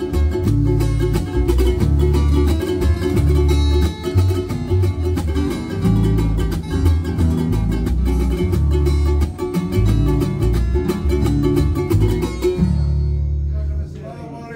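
Acoustic guitar strummed in a steady rhythm, stopping near the end on a last chord that rings out and fades.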